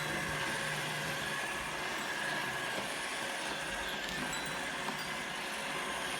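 Roomba robot vacuum running: a steady motor and brush whir with a faint, steady high tone.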